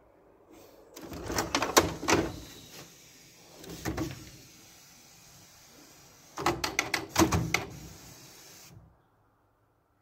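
Clicks, snaps and knocks of plastic parts as a Canon Pixma G3411 inkjet printer's cover is lifted and its print-head carriage with the blue locking covers is handled, in three short clusters.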